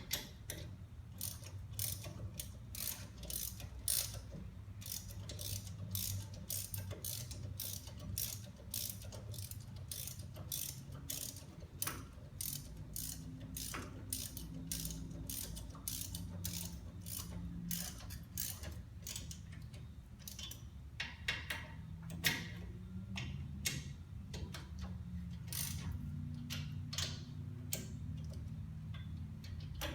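Socket ratchet clicking as a hub assembly bolt is turned in, in quick runs of pawl clicks with short pauses between strokes, over a low steady hum.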